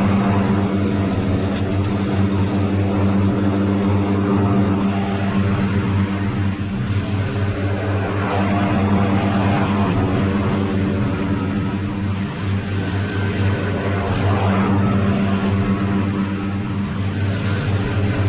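Small petrol engine of yard equipment running steadily under load, its pitch holding level with slight swells in loudness.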